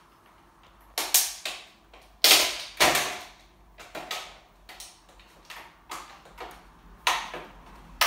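Stiletto heel stamping on a plastic toy remote-control handset on a wooden floor: a series of sharp plastic cracks and knocks, loudest about a second in and again two to three seconds in, with smaller clicks between. The toughened toy plastic is holding up rather than shattering.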